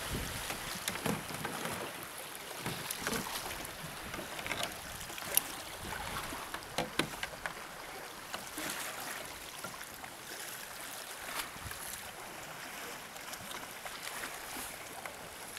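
Water splashing and lapping around sea kayaks as a paddle dips and pulls through the water, with a few sharp clicks near the middle, the loudest about five seconds in.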